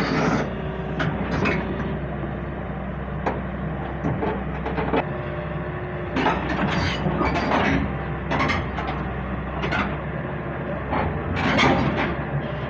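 A JCB digger's diesel engine running steadily, with irregular metal clanks and knocks over it, the loudest one near the end.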